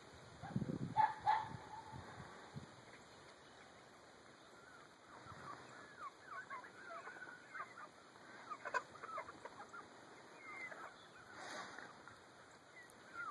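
Chickens clucking and calling: a scatter of short, quick calls through the second half. There are low bumps on the microphone about a second in.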